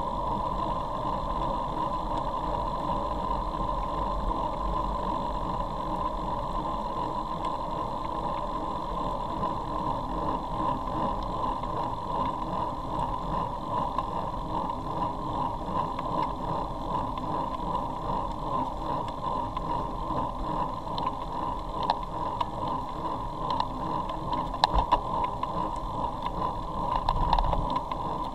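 Wind rushing over a camera microphone on a moving road bicycle, with tyre noise on wet tarmac, steady throughout. A few short clicks and knocks come in the last several seconds.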